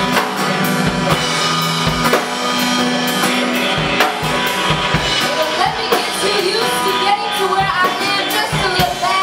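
Live band playing: drum kit keeping a steady beat under bass and acoustic and electric guitars. A voice comes in over the band about halfway through.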